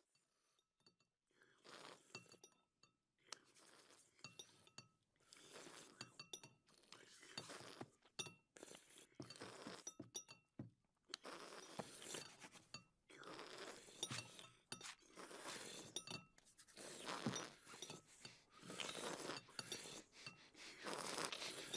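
Spoons clinking and scraping against ceramic soup bowls in scattered faint taps, some with a short ring.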